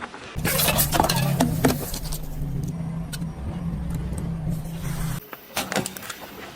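A car running slowly at a low steady hum while objects crackle and crunch under its tyres, mostly in the first two seconds and again near the end. The engine sound cuts off suddenly about five seconds in.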